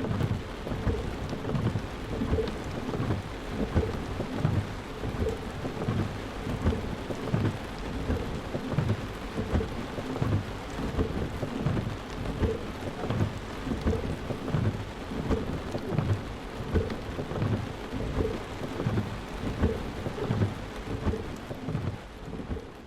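Rainstorm: steady rain falling, with thunder rumbling low and continually underneath.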